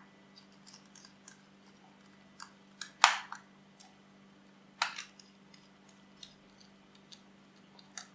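Small clicks and taps of a screwdriver and plastic case as the back-case screws of a SkyDrop variometer are driven back in, with two louder knocks about three and five seconds in. A faint steady hum runs underneath.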